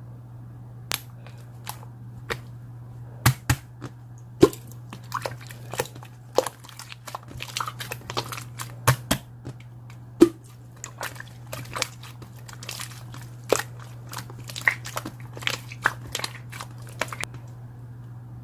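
Marbled slime being squeezed and pressed by hand, giving irregular crackling pops and clicks that stop a little before the end, over a steady low hum.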